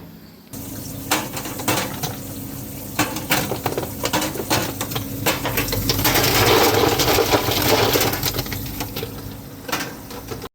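Ice cubes clattering and rattling against one another and the bin of a commercial ice machine, many small hard knocks with a busier stretch about halfway through, over the steady hum of the machine running.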